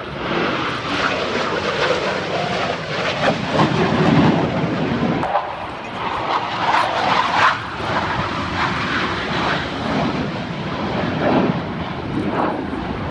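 Jet engine noise from Blue Angels F/A-18 Hornets flying past: a loud, steady rush that swells twice in the middle.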